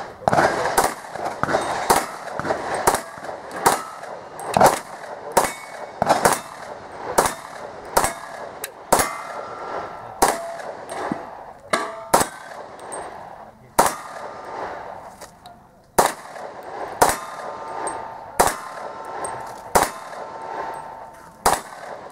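Rapid pistol fire during an IPSC stage: a long string of single shots, roughly one or two a second, with a pause of about two seconds just past the middle. A short metallic ring follows some of the shots.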